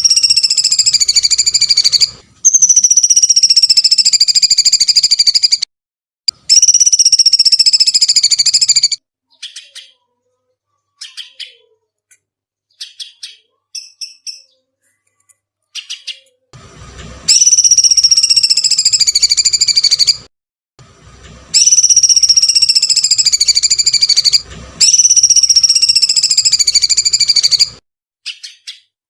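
Songbird training recording: long, shrill, screeching calls, each about three seconds and slowly falling in pitch. Three come in quick succession, then only short faint chirps for several seconds, then three more long calls.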